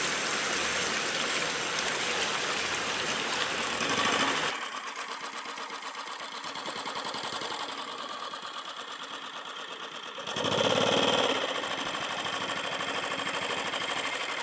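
Rushing water and wind noise of a boat under way, then a change to a small engine running with a fast, even pulsing, briefly louder about ten seconds in.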